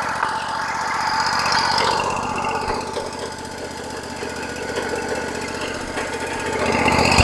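Engine of a Wood-Mizer LT40 Wide hydraulic sawmill running steadily at idle, growing louder near the end.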